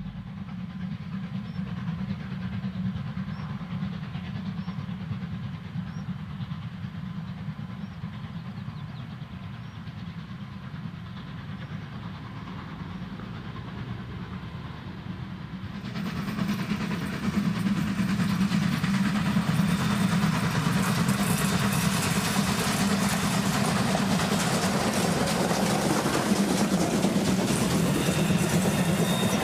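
Steam-hauled passenger train running along the line: a steady low rumble at a distance, which gets suddenly much louder about halfway through as the train runs close by and its coaches roll past.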